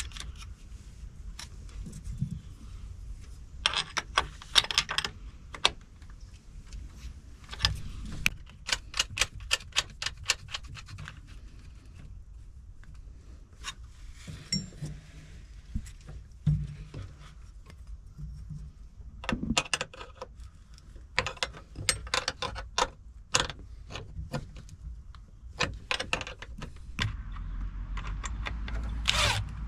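Bursts of small metallic clicks and clinks from hand tools and wiring hardware as battery cable terminals are fitted and fastened on a boat battery switch, some in quick even runs like a ratchet wrench.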